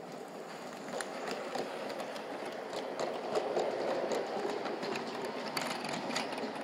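LGB G-scale model train running on its track, with a steady running noise and rapid irregular clicking as the wheels cross the rail joints. It grows louder as the train passes close by, about three to four seconds in.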